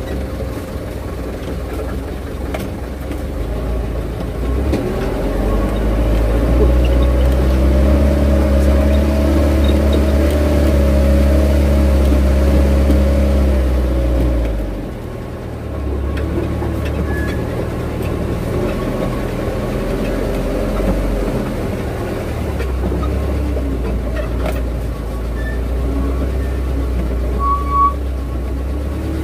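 Truck engine running under way. It builds and rises in pitch from about four seconds in, holds, drops off briefly around the middle, then runs on steadily.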